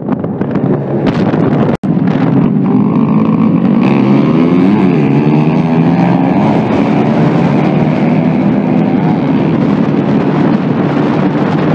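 Many small motorcycle and scooter engines running together in a large group, with several engine notes rising and falling over one another as riders rev. Wind buffets the microphone in the first two seconds, and the sound cuts out for an instant about two seconds in.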